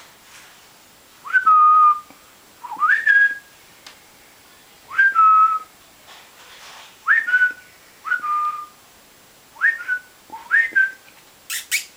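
Puppy whining: about seven short, high whines, each rising quickly to a briefly held note, spaced a second or two apart. It is the sound of a puppy hesitating to jump down from a bed.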